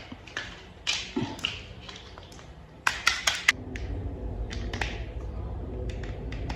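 Hard plastic toy parts being handled and snapped together: scattered sharp clicks and taps, with a quick cluster of clicks about halfway through. A steady low hum joins in a little after the middle.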